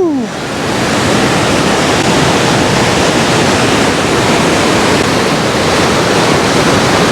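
Alpine river running high, a loud, steady rush of fast water. A man's "woo!" rises and falls right at the start.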